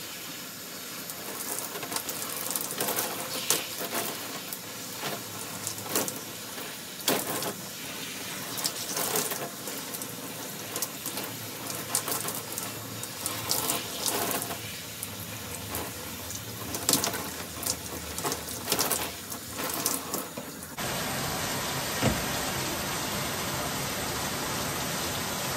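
Handheld shower spraying water onto long curly hair and running off it as she rinses out the conditioner, with irregular splashes and spatters as her hands work through the hair. About 21 seconds in, the sound switches abruptly to a steadier, even hiss.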